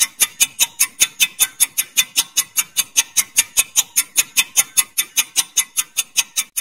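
Countdown-timer ticking sound effect: a steady run of short, sharp ticks, about five a second.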